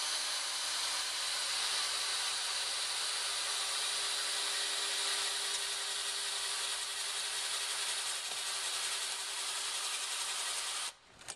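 Cordless drill with a 32 mm bit boring a cable access hole through a black plastic headlight bowl: a steady cutting noise over a constant motor hum, stopping abruptly near the end.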